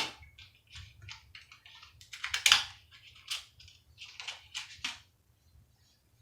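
Hair being handled and pinned by hand: a run of crackly rustles, loudest about two and a half seconds in, dying away about five seconds in.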